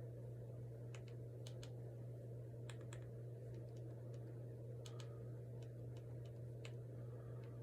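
Light plastic clicks of a TV remote's buttons, pressed at irregular intervals, many in quick press-and-release pairs, over a steady low electrical hum.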